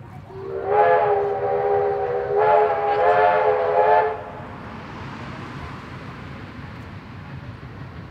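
Steam locomotive whistle blown twice in quick succession, a chord-like tone that slides up slightly as it opens, then cuts off about four seconds in. The train's steady running noise carries on after it.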